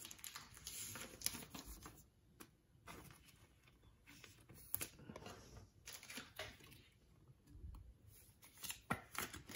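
Faint rustling and small clicks of a trading card being handled and slid into a thin clear plastic sleeve, with a few sharper ticks near the end.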